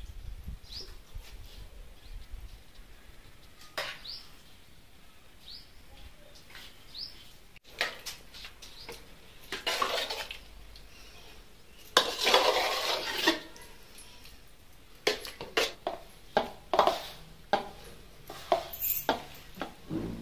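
Steel spoon scraping and clinking against a steel pot as thick cooked pumpkin mash is scooped out onto a plate of flour. There is a longer scrape about twelve seconds in, then a quick run of sharp clinks near the end.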